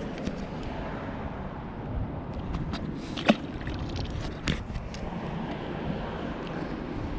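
Steady outdoor background noise, with two sharp clicks a little over a second apart near the middle.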